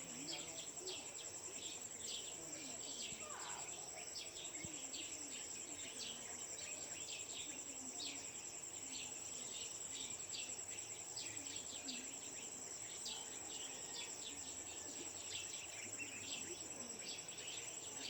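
Dawn village ambience: a steady high-pitched insect trill, with many short bird chirps throughout and a faint murmur of distant voices underneath.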